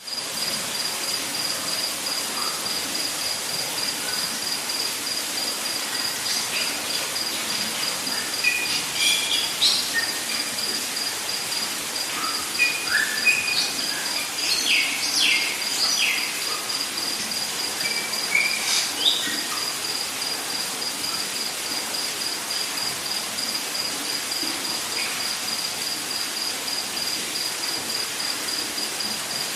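Rainforest ambience: a steady, rapidly pulsing high insect trill over a dense hiss of insects, with a scatter of bird calls (short chirps and quick sweeping whistles) in the middle stretch.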